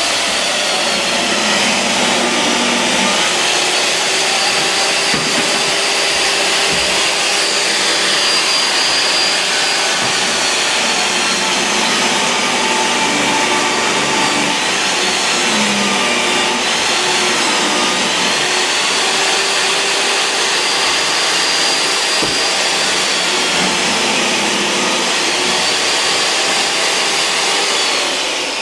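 Compact jobsite table saw running without a break as it rips thin wooden strips. Its motor whine is steady and dips briefly in pitch now and then as the blade takes load.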